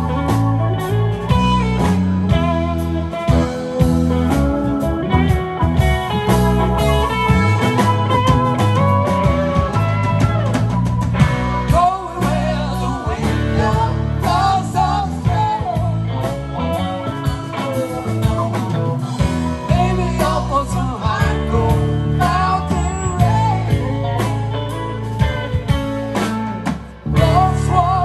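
Live rock band playing with electric guitar, bass, keyboards and drums, a guitar carrying a bending lead line over the steady bass and drums.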